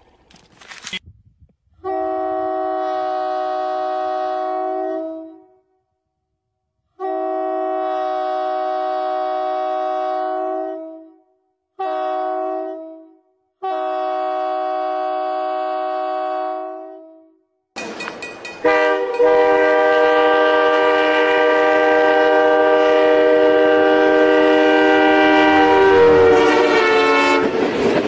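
Locomotive air horn sounding the grade-crossing signal: two long blasts, one short, one long. Then one long unbroken blast over the rumble and clatter of the train going by.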